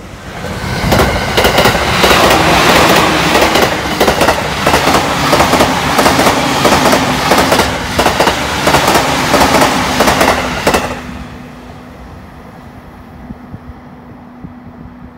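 JR East Utsunomiya Line suburban electric multiple unit passing close by at speed: a rising rush of wheel and rail noise with a steady run of clickety-clack as the wheels cross rail joints. It drops away sharply about eleven seconds in, leaving a quieter steady hum as the train recedes.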